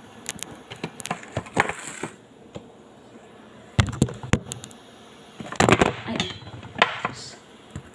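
Handling noise from a phone being picked up and repositioned: irregular knocks, taps and rubbing on the microphone, in three spells, near the start, about four seconds in and around six to seven seconds.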